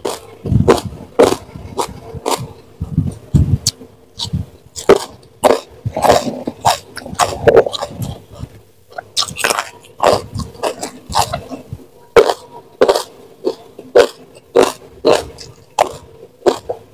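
Close-miked chewing of raw young jengkol beans with sambal and rice: sharp crunches and wet mouth smacks, about one to two a second.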